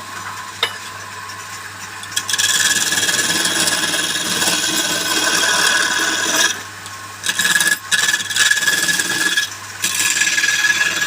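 Wood lathe running with a steady whine while the spinning wood is worked, a rasping scrape that comes in spells with brief breaks.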